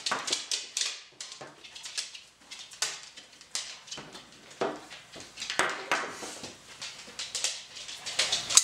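Quick irregular clicks and scrapes of a folding knife's built-in quarter-inch hex driver working a screw on a pistol's grip, with the pistol knocked and handled on the table. The loudest knocks come near the end as the pistol is picked up.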